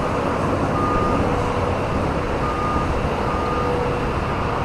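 Steady loud roar of outdoor noise with a reversing alarm beeping a few times over it, short high beeps about half a second long.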